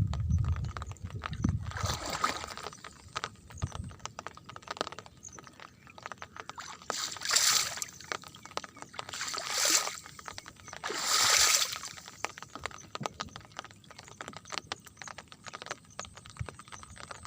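Heavy rain: a dense patter of separate drops striking hard surfaces, with four louder splashing swells of about a second each, one near the start and three in the middle.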